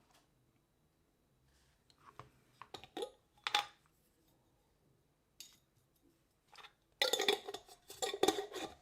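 Small clinks and taps of hard objects against glass: a few scattered ones, then a busier run of clinking and rattling near the end, as a small glass jar of MEK and tools are handled.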